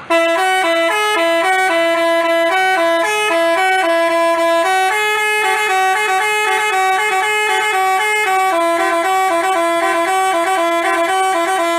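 Basuri-type telolet bus horn playing a fast melody of short, steady tones. It starts and stops abruptly.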